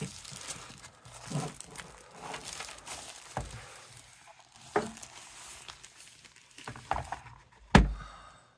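Plastic packaging being handled: crinkling and rustling with scattered light knocks, and one sharp knock near the end.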